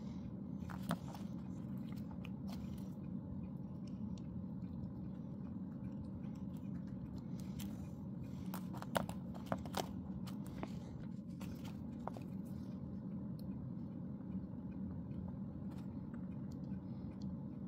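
Small clicks, taps and crackles from handling wires, solder and steel pliers, with a few sharper clicks about halfway through, over a steady low background hum.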